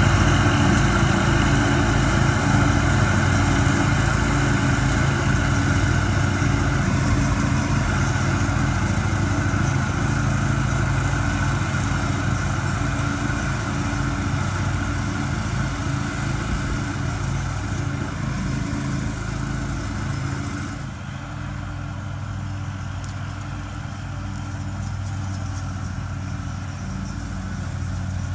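Engine of a tow-behind brush mower running steadily under load while it mows, mixed with the engine of the vehicle pulling it. About 21 seconds in, the sound turns duller and slightly quieter.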